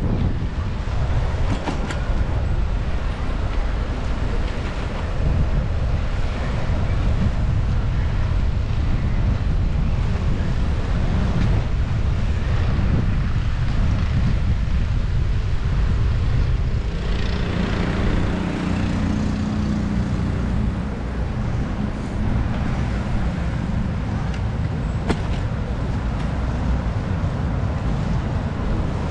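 Wind buffeting the microphone of a riding bicycle, mixed with city traffic noise. A passing vehicle's low hum grows louder about seventeen seconds in and fades a few seconds later.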